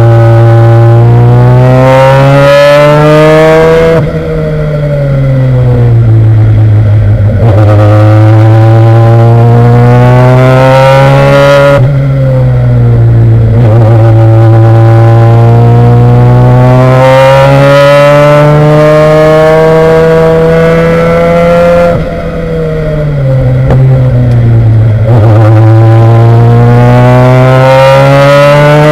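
A race car's engine heard from inside the car at full load. The revs climb steadily and drop at each gear change, and twice, about 4 s and 22 s in, the engine falls off more deeply for a few seconds as the driver lifts for corners before pulling hard again.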